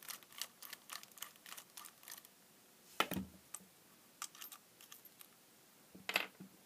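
Cheap plastic-ratchet screwdriver clicking in a quick run as screws are backed out of a metal air-pump body, followed by scattered faint clicks and two louder knocks about three seconds apart.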